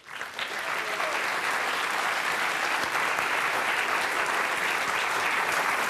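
Audience applauding, swelling up within the first half-second and then holding steady.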